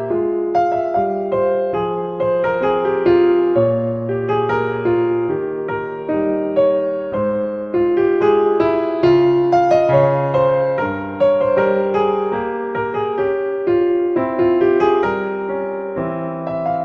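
Solo piano music, an allemande, with notes played in a steady, flowing line.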